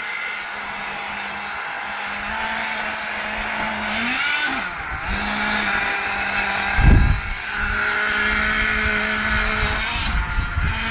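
Radio-controlled off-road buggy's small engine whining at high revs, its pitch rising and falling as it accelerates and eases off around the dirt track. There is a sharp low thump about seven seconds in.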